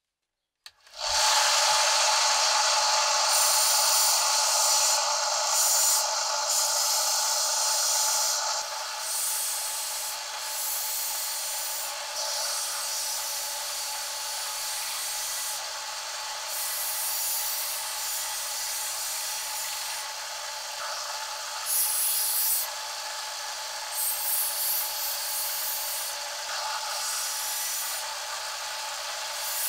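Small benchtop combination belt and disc sander grinding rust off a steel sickle blade on its sanding belt. A steady rasping with a faint motor tone starts abruptly about a second in, is loudest for the first several seconds, then rises and falls as the blade is pressed and moved along the belt.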